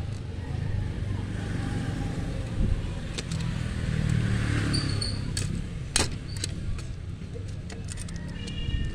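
Steady low motor rumble, with a few sharp clicks and taps as the springs and metal frame of a disassembled Epson inkjet printer are handled; the two loudest clicks come about two and a half and six seconds in.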